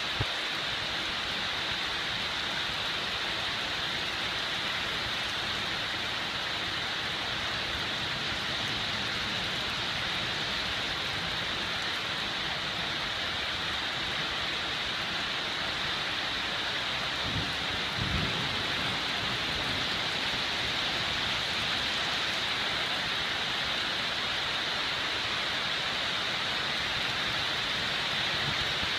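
Heavy downpour: a steady, dense hiss of rain falling on leaves, grass and paving. A brief low rumble comes about two-thirds of the way through.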